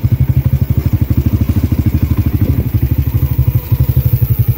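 Engine of a handlebar-steered vehicle running steadily as it is ridden along a rough dirt track, with a low, even beat of about ten pulses a second.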